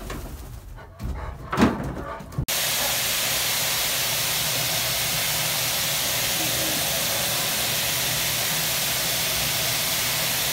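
A hose-type dog blow dryer blowing air, a steady loud rushing hiss that starts abruptly about two and a half seconds in. Before it, a few brief knocks.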